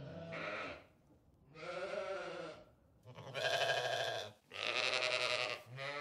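Sheep bleating: about five long, wavering bleats one after another, each lasting about a second.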